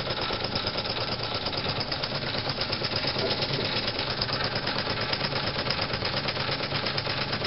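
J. Falk 145 toy steam engine running steadily with its engine-driven feedwater pump in operation: a rapid, even mechanical clatter. Boiler pressure has fallen to about half a bar with the pump working.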